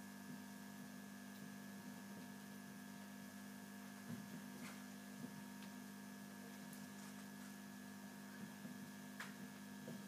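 Steady, faint electrical hum, with a few soft scratches and taps of a marker writing on a whiteboard.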